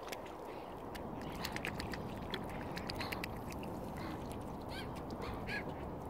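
Waterbirds calling at the water's edge: a handful of short calls, most of them in the second half, among quick light clicks, over a steady low background noise.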